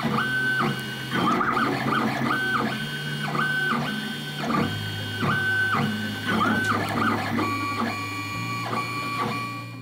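FDM 3D printer printing: its stepper motors whine in short moves of about half a second each, jumping between a few set pitches as the print head travels, over a low steady hum.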